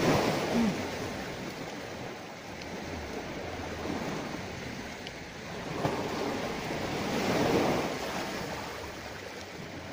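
Sea waves washing on the shore, an even rushing that swells and eases, growing loudest about six to eight seconds in.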